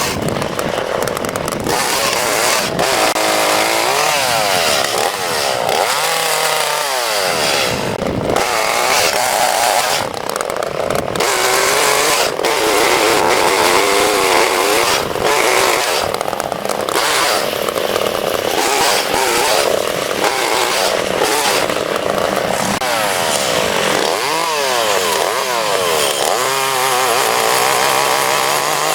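Chainsaw running and cutting dead oak branches, its engine speed rising and falling several times as it bites into the wood and backs off.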